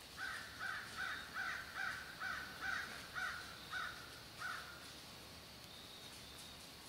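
An animal calling: a run of about ten harsh calls, two or three a second, that stops after about four and a half seconds.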